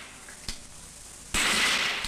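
Small-bore .22 target rifle firing: a faint sharp click about half a second in, then a harsh crack lasting about half a second near the end.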